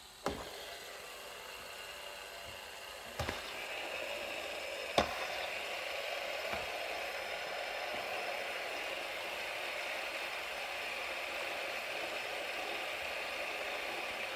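Several metal fidget spinners spinning together on a wooden tabletop, their bearings making a steady whir. A few sharp clicks come in the first five seconds as fingers flick the spinners off, and the whir starts after about three and a half seconds.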